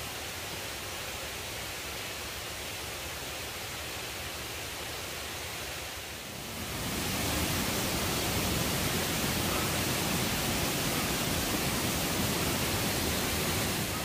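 Rain-swollen mountain stream rushing in a steady, noisy flow. It gets clearly louder about six and a half seconds in.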